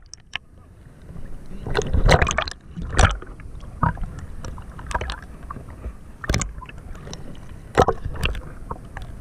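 Shallow seawater sloshing and splashing against a camera held at the water's surface, in irregular bursts with occasional knocks, loudest about two and three seconds in.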